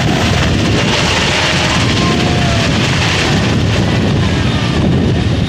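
UH-60 Black Hawk helicopter climbing away after take-off: loud, steady rotor beat with the noise of its twin turboshaft engines.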